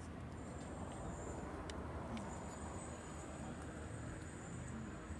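Quiet outdoor ambience with a steady low rumble. A faint, thin high-pitched tone comes in briefly near the start, then returns about two seconds in and holds, with a few faint clicks.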